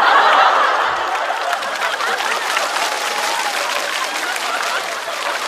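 Studio audience applauding after a punchline, loudest at the start and slowly dying down.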